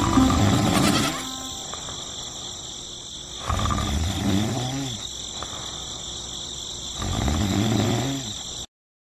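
Cartoon night ambience: steady high insect chirring, with a low, bleat-like animal voice three times, about every three and a half seconds. Everything cuts off suddenly near the end.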